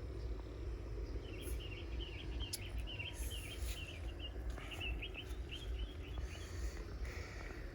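A bird sings a rapid, chattering run of notes starting about a second in and lasting several seconds, over a steady low rumble.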